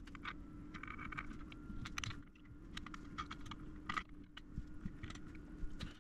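Faint, scattered small clicks and taps of tweezers and a soldering iron handling tiny parts on a workbench, over a steady low hum and a faint high whine.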